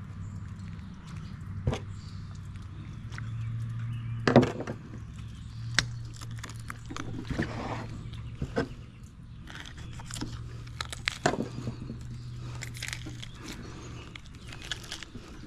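Gloved hands handling a large sheepshead on a plastic cutting board, giving a scatter of short taps and knocks, the loudest about four seconds in. A steady low hum runs underneath.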